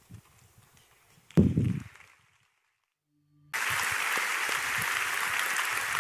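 A single deep thud about a second and a half in, then a moment of silence. Then crowd applause cuts in abruptly and carries on steadily.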